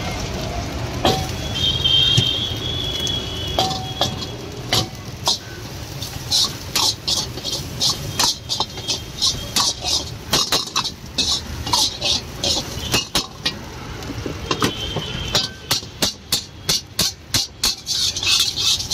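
Metal spatula striking and scraping a steel wok as egg fried rice is tossed and stirred: a quick, uneven run of clanks, two or three a second, getting faster near the end. A low steady rumble sits underneath.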